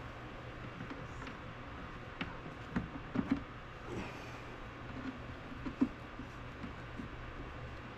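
A few light clicks and knocks, the sharpest a little past three seconds and just before six seconds in, over a steady low hum.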